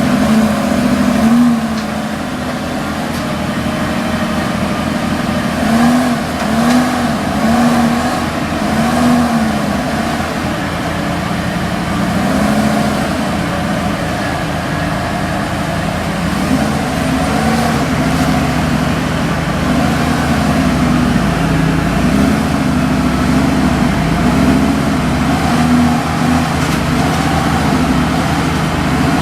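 Car engine idling and being given repeated short revs, each rising and falling again within about a second: a run of several in the first third and more through the second half.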